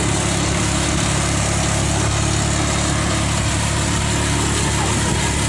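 A vehicle engine running at a steady pace, with a constant hum under wind and road noise from the moving ride.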